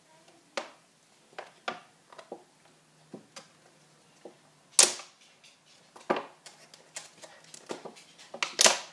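Thin clear plastic container lid being pried and pulled open by hand: scattered sharp crackles and clicks of the plastic, with two louder snaps, one about five seconds in and one near the end.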